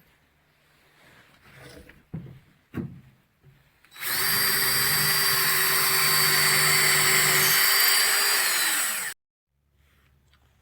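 A few light knocks of handling, then a power drill boring into a juniper slab for about five seconds, its pitch falling as it spins down at the stop. The hole is drilled to take a kiln moisture probe.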